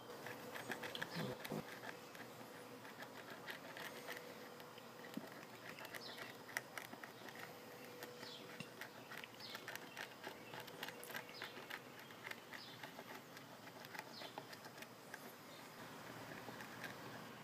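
Plastic squeeze bottle of glue being pressed as a bead is laid around a subwoofer cone: faint, irregular crackling and ticking, with a few short squeaks that fall in pitch.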